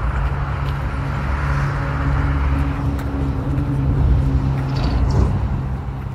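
A motor vehicle's engine running with a steady low hum over road traffic noise; the hum stops about five seconds in.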